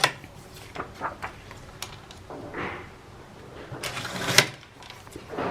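Scissors cutting paper: a few short snips, a brief rustle of paper, and a louder sharp click a little past four seconds in.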